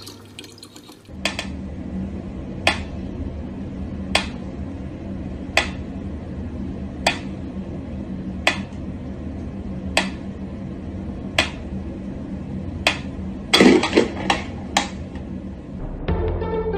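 Mechanical pyramid metronome ticking slowly and evenly, about one tick every second and a half. Near the end it breaks into a quick run of several louder knocks, then music starts.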